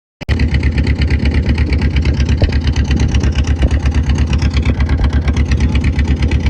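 Boat engine running steadily with an even, low pulsing beat; the sound cuts out for a moment at the very start, then carries on unchanged.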